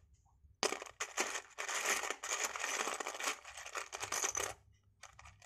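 Loose plastic Lego bricks clattering and rattling against each other and a plastic tub as hands stir through them. The rattling starts about half a second in and stops near the end.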